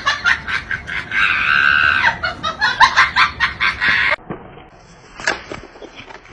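Animal calls in quick succession, several short ones with one longer call about a second in, cut off suddenly about four seconds in; faint clicks follow.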